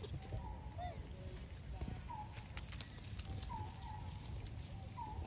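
Short animal calls, each a brief curved chirp, repeated about six times at irregular intervals over a low steady background rumble.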